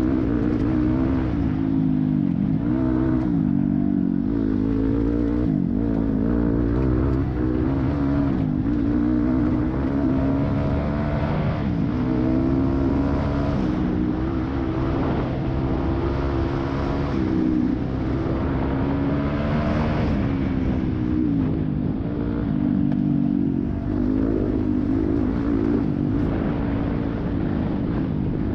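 Yamaha YZ250F four-stroke single-cylinder dirt bike engine at racing speed, revving up and falling back again and again with the throttle and gear changes.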